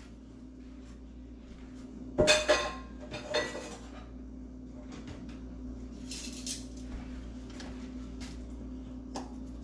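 Metal kitchen utensils clattering: a sharp clank about two seconds in, another knock a second later and a lighter rattle after that, as metal tongs are picked out. A steady low hum runs underneath.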